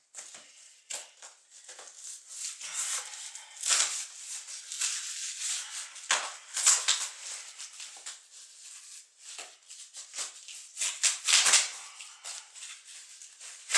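Hands scraping and picking at packing tape on a cardboard guitar shipping box: irregular scratchy rustling of fingernails on tape and cardboard, with louder tearing bursts now and then.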